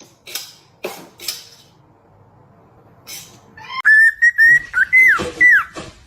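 A run of about six short, high whistling notes starting about four seconds in, the last few dropping in pitch. It comes after a few brief rustling bursts in the first second or so.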